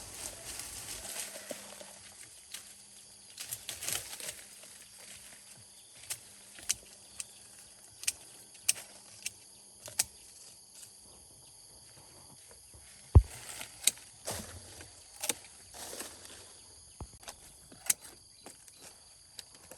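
Sharp clicks or snaps at irregular intervals, about a dozen of them, the loudest about two-thirds of the way in, over a steady high-pitched whine.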